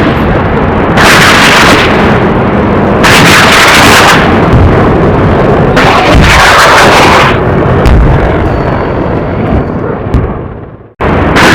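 Aircraft rockets firing at close range: a loud rushing blast that surges three times, about a second, three and six seconds in, then fades away, and another firing starts abruptly near the end.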